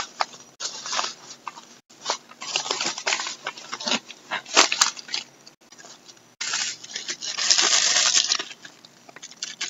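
A mailed package being opened and unpacked by hand: irregular crinkling and rustling of its wrapping, with a longer rustle near the end.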